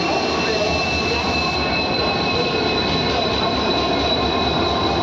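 WDP4D diesel-electric locomotive passing close by, engine running, with a steady high-pitched wheel squeal that drifts slightly lower in pitch.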